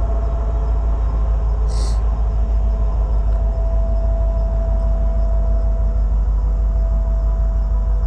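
Steady low rumble with a faint steady hum above it, and a brief hiss about two seconds in.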